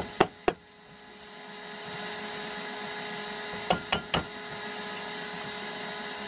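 LG direct-drive washing-machine rotor spinning freely by hand on a newly fitted shielded ball bearing, a steady whirring with a faint steady whine. The bearing sits slightly off-square, giving a tiny wobble. Two sharp knocks as it is pushed at the start, and a few clicks about four seconds in.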